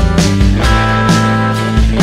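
Background music: sustained chords over a steady beat, about two beats a second.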